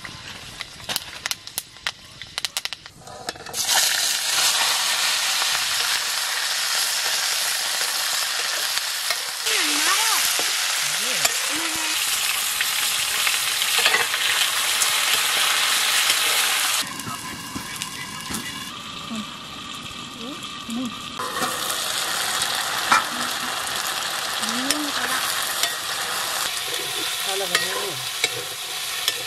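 Food frying in hot oil in an iron wok over a wood fire, stirred with a metal ladle. After a few scattered crackles, a loud, steady sizzle starts suddenly about three and a half seconds in. It drops back for a few seconds past the middle, then picks up again.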